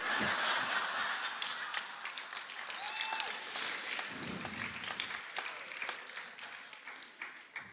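Audience applauding after a punchline: dense clapping that is loudest at first and fades away over several seconds.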